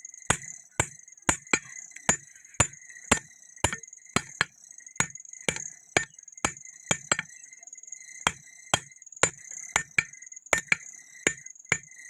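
Hand hammer striking hot steel on an anvil in a steady rhythm of about two blows a second, with a short break about seven seconds in.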